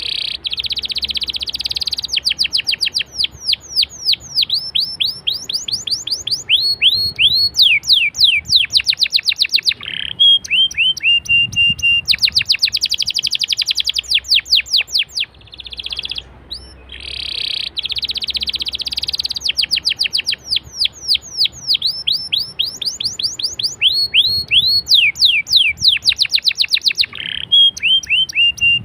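Domestic canary singing a long rolling song: fast trills and runs of quick downward-sweeping whistled notes, broken twice by a short run of lower, evenly repeated notes. The same song sequence plays through twice.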